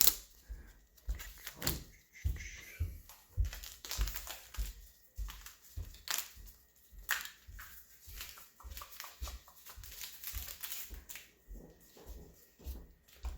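A plastic tire lever and hands working a 26-inch mountain bike tire off its rim: irregular knocks, clicks and short scrapes of rubber and plastic.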